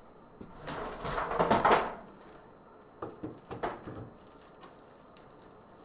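Handling noise from PVC pipe fittings being worked by hand: a scraping rustle lasting about a second and a half, then two light knocks.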